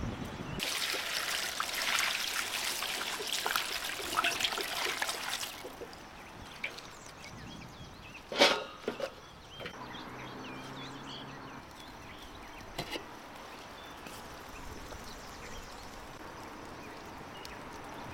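Water pouring and splashing for about five seconds. About halfway through there is one sharp knock, with a couple of lighter knocks just after it.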